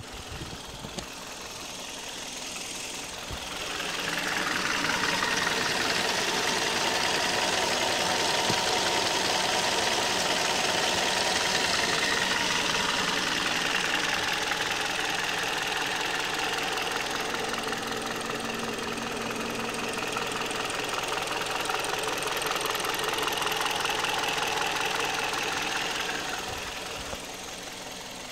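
2008 Kia Cee'd petrol engine running with a rapid, steady knocking, at 104,000 km, with valve clearances checked and within tolerance, so the knock's cause is unknown. It gets louder about 4 seconds in and drops back near the end.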